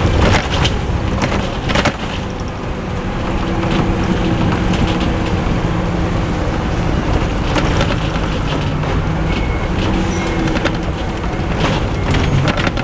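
Cummins LT10 diesel engine of a Leyland Olympian double-decker bus running under way, heard from inside the bus, its pitch shifting a few times. Sharp clicks and rattles from the bus body come and go over the engine.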